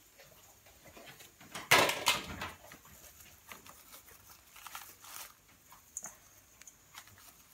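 Kitchen handling noises: a loud, brief rustle and clatter about two seconds in, then scattered soft clicks and rustles.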